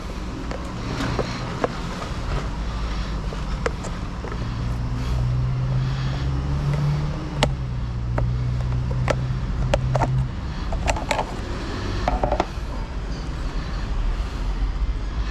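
Sharp clicks, snaps and short rattles of hand tools prying open the plastic and metal casing of an electronic control module, over a steady low rumble.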